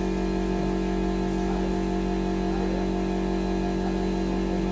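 Steady hum made of several fixed pitches, unchanging in level and tone.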